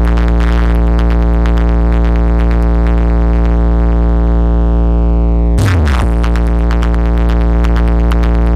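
Loud electronic dance music played through a DJ sound system's speaker boxes during a sound test. A sustained deep bass tone runs under a fast rhythm of beat hits. A little over halfway through, a short sweeping burst and a falling bass drop cut in before the beat resumes.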